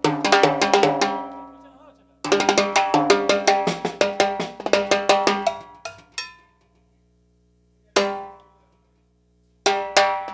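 Drums struck in fast runs of strokes at a sound check, each stroke ringing with a pitched tone: one run dies away at the start, a longer run goes from about two seconds to five, a single hit comes near eight seconds, and another run starts near the end.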